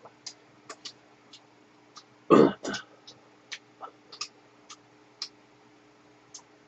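A person gives a short throat-clearing cough in two quick parts about two and a half seconds in, amid scattered quieter light clicks.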